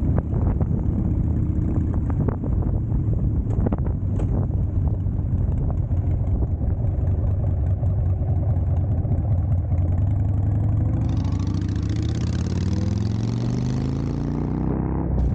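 Car engine running steadily with road noise, then its pitch rising in the last few seconds as the car accelerates.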